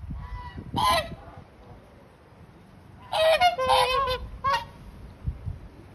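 Whooper swans honking: two calls in the first second, then a run of several louder honks about three seconds in.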